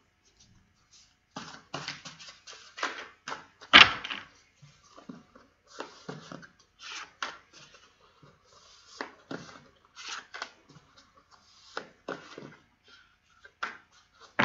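A deck of tarot cards shuffled and handled by hand: a run of irregular papery flicks and taps, the loudest a sharp slap about four seconds in.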